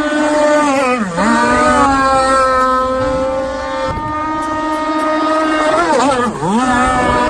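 32cc two-stroke gasoline engine of a radio-controlled speedboat running at high revs, a steady high-pitched buzz. Twice, about a second in and near the end, the revs drop sharply and climb straight back.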